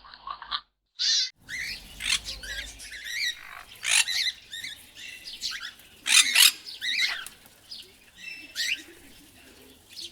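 Birds calling: a run of short, high chirps and sliding calls, irregularly spaced.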